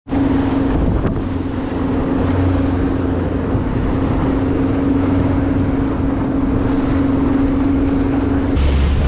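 Motorboat engine running steadily with a constant hum, under the rush of the wake and wind on the microphone. The hum stops shortly before the end as the low rumble grows louder.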